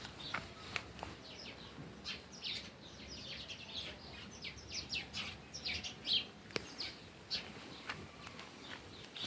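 Small birds chirping: many short, high chirps in quick, irregular succession, with one sharp click about six and a half seconds in.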